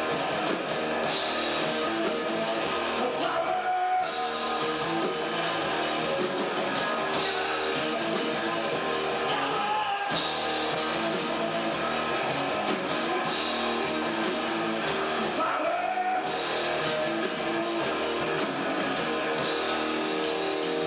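A rock band playing live: electric guitar and a drum kit with cymbals, the cymbals dropping out briefly about every six seconds.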